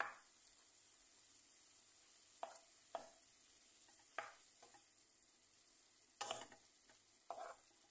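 Spatula stirring and scraping crumbled food in a frying pan: about six short scrapes at uneven intervals over a faint, steady sizzle.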